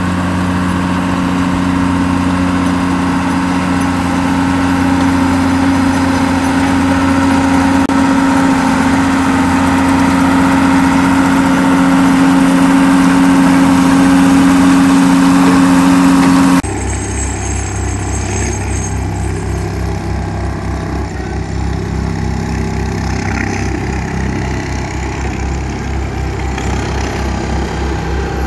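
Tracked cable plough's engine running steadily under load, a loud hum over a noisy mechanical clatter. About two-thirds of the way through it cuts to a lower, evenly pulsing rumble from an excavator-mounted vibrating attachment working the ground.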